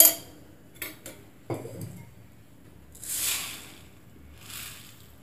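Stainless-steel kitchen vessels clinking and knocking as they are set down beside the pot on the stove: one sharp clink at the start, then a few lighter knocks. After that come three soft, short hissing swells.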